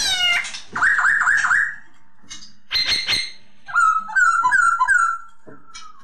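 Black-throated laughingthrush (poksay Hongkong) singing a varied whistled song. It opens with a falling call, then a quick run of four looping notes, and more warbling phrases follow from about three seconds in until just after five seconds.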